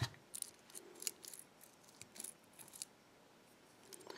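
Faint small metallic clicks and taps from a euro cylinder's plug and plug follower being handled: a knock at the start, then a quick scatter of light clicks for about three seconds, and one more near the end.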